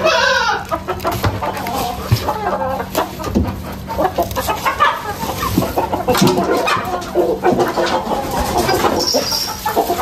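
Several chickens clucking and calling at once around the feed, opening with a short falling call.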